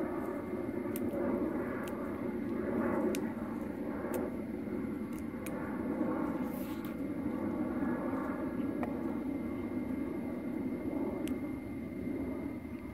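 A steady engine drone, with a few faint clicks scattered through it.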